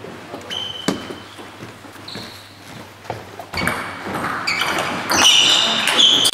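Table tennis rally: the ball clicking off bats and the table, with short high squeaks of shoes on the wooden floor, echoing in a large hall. The play grows busier and louder from about three and a half seconds in.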